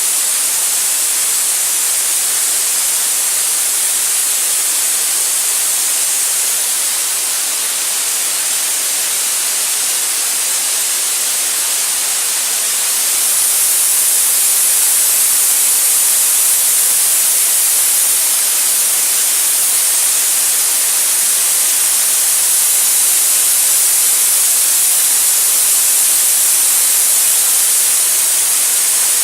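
Loud, steady hiss of air rushing from a DENAIR diesel portable screw air compressor, growing a little louder about thirteen seconds in.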